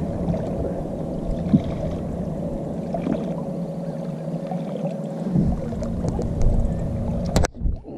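Boat motor running steadily at low trolling speed, a constant hum over the rumble of the hull on the water; it cuts off abruptly near the end.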